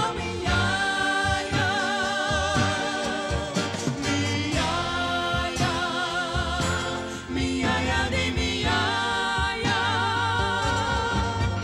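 A woman singing a gospel song into a microphone, holding long notes with vibrato, over a band with bass and drums.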